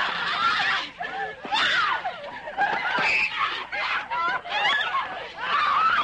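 Several voices laughing and calling out over one another, with some high-pitched cries.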